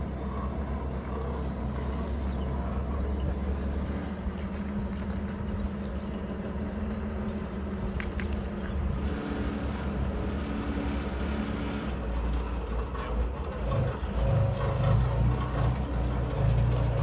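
Aircraft tow tractor's engine running steadily as it tows a helicopter, getting louder near the end as it comes closer.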